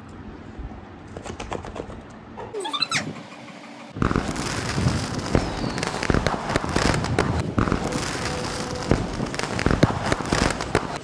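A golden retriever rubbing and rolling his head against the bedding in reaction to ear cleanser just put in his ear: a dense crackling and rustling of fabric that starts abruptly about four seconds in. Before it there is quieter rustling and one short rising tone.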